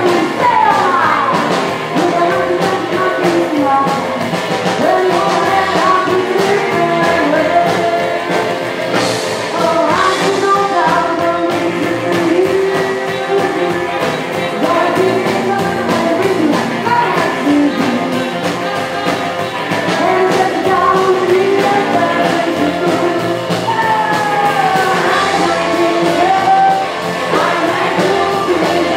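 Live rockabilly band playing: hollow-body electric guitar, saxophone and drums, with a woman singing over them.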